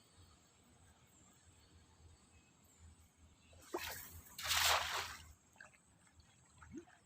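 Water splashing and sloshing about four seconds in, lasting about a second and a half, with a few small drips after.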